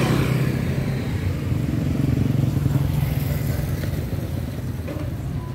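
A motor vehicle engine running nearby as a low rumble. It swells about two to three seconds in, then eases off.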